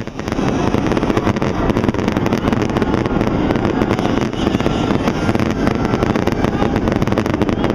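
Fireworks display: many aerial shells bursting in rapid succession, a dense, continuous barrage of bangs without a break.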